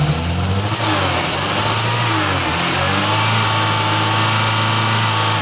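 Toyota Tercel four-cylinder engine running just after starting, revved up and down and then held at steady raised revs to clear out fuel left in it by long cranking. It now runs on a new ignition coil, the old one having been weak.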